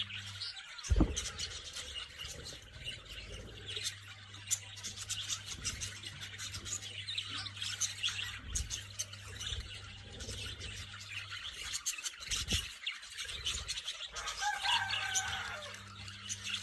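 Parrots chirping in many quick, high chirps, with a short pitched call near the end. A low thump about a second in is the loudest sound, over a steady low hum.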